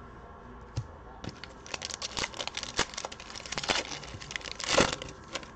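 Foil wrapper of a trading-card pack crinkling and tearing as it is ripped open by hand. It starts about a second in, with a dense run of crackles and the loudest rip near the end.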